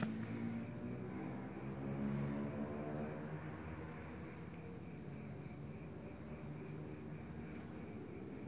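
Crickets chirping in a steady, rapid, even trill.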